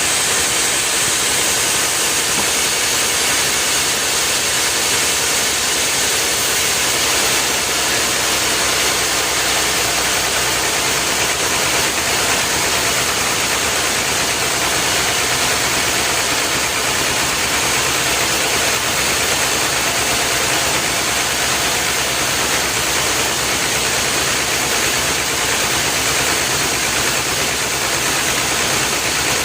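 An engine running steadily at an even level, with a strong high hiss.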